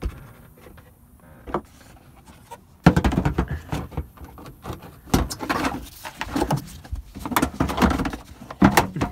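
Knocks, bumps and clatter of hard car-interior parts being handled and moved about. After a few faint clicks it starts suddenly about three seconds in and keeps going as a rapid, uneven run of knocks.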